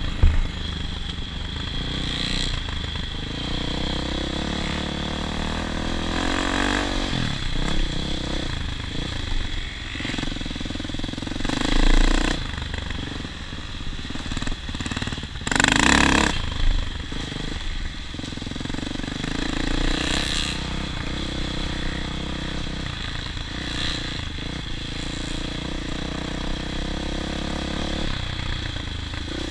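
A vehicle engine running, its pitch rising and falling around six to seven seconds in, with two short louder rushes of noise about twelve and sixteen seconds in.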